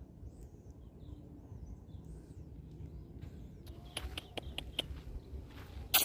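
Small birds chirping faintly over a low outdoor rumble. From about two-thirds of the way in comes a run of sharp taps and clicks, with one loud knock just before the end.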